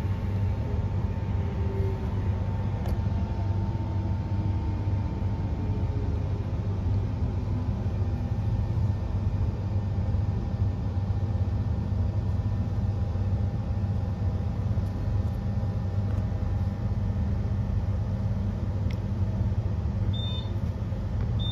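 Interior running noise of a Queensland Rail NGR electric multiple unit slowing into a station: a steady low rumble with a faint falling whine of the electric traction drive as it brakes. A couple of short high beeps sound near the end.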